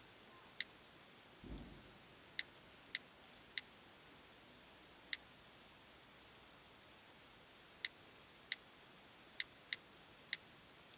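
Faint smartphone keyboard clicks: about ten short, high ticks at irregular intervals as keys are tapped on the screen. A soft low thump comes about a second and a half in.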